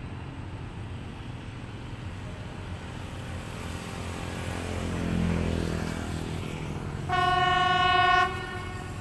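Freight train running past with a steady low rumble that swells midway, then its horn sounds one loud, single-pitched blast lasting about a second.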